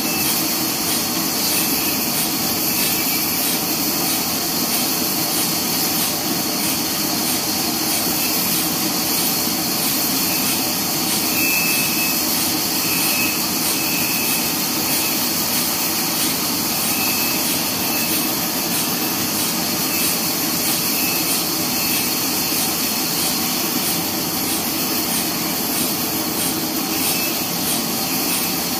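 Horizontal bandsaw mill running with its blade cutting lengthwise through a neem log: a steady, unbroken sawing noise.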